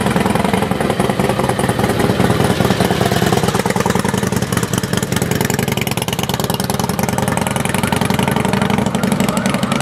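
Motorcycle engine running close by, idling steadily.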